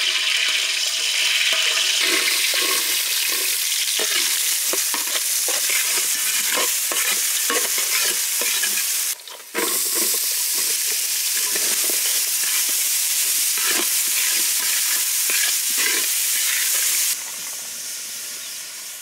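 Food frying in hot oil in a pan, sizzling steadily while a spatula stirs and scrapes it over and over. The sound cuts out briefly about halfway, then goes on, quieter for the last two seconds.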